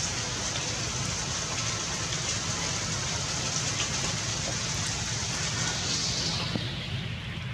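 Steady rain falling on puddles and wet ground, an even hiss over a low rumble; the high part of the hiss softens about six seconds in.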